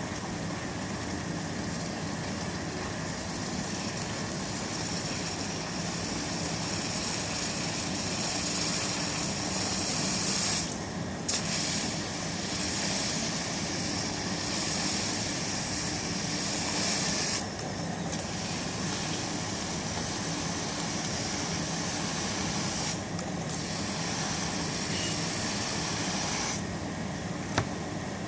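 An electro-polisher's brush cleaning a MIG fillet weld, giving a steady hiss over a low hum. The hiss breaks off briefly four times as the brush leaves the metal, with a sharp click at two of the breaks.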